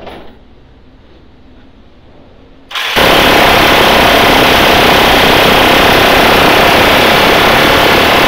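Minigun firing one long, unbroken burst that starts abruptly about three seconds in: a loud, steady ripping buzz of shots fired too fast to pick apart.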